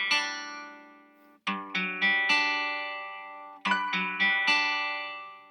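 GarageBand acoustic guitar loop playing a slow, moody, pensive phrase: plucked chords and single notes that ring out and fade, with a short pause about a second in.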